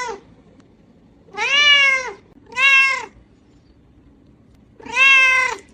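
Cat meowing: three separate meows, each rising and then falling in pitch, with the end of another heard at the very start.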